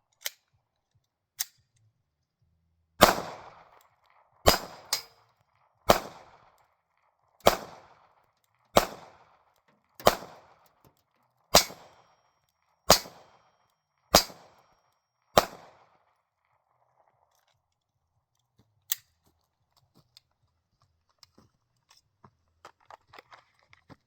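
SIG Sauer P320 pistol firing ten shots at a steady pace, about one every second and a half, each a sharp crack with a short echo. A few fainter cracks come before and after the string.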